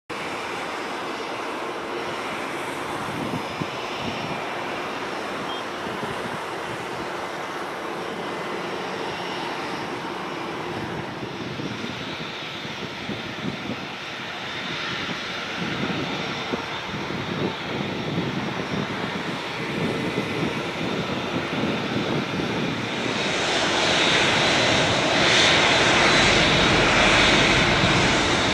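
Airbus A380's four Engine Alliance GP7200 turbofans running at taxi thrust, a steady jet drone that grows louder as the airliner approaches, with a high engine whine swelling in near the end.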